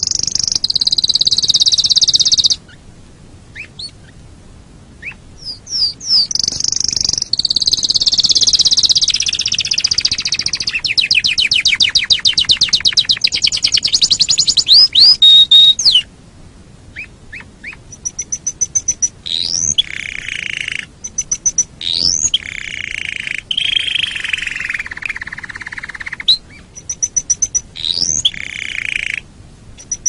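Canary singing: long high warbling song phrases with sweeping whistled notes and a fast rattling trill, broken by pauses of a few seconds about 2.5 seconds in and again around the middle.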